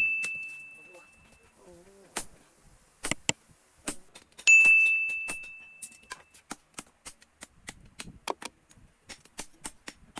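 Hammer blows on steel at an anvil. A ringing strike dies away at the start, a second hard blow about four and a half seconds in rings out with a high clear tone for about two seconds, and then quicker, lighter hammer taps follow, a few a second.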